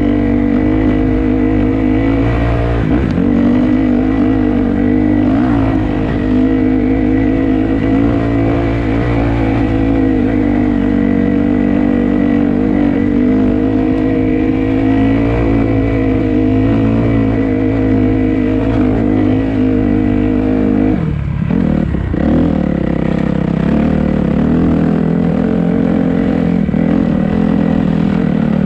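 Dirt bike engine running steadily under load on a rough trail, at an even pitch. About three quarters of the way through it drops suddenly to a lower steady note as the throttle is eased or a gear is changed.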